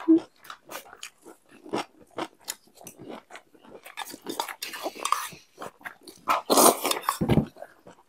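Close-up eating sounds: wet chewing with small crunches and clicks of food in the mouth, then a loud slurp of fried noodles from chopsticks about six and a half seconds in.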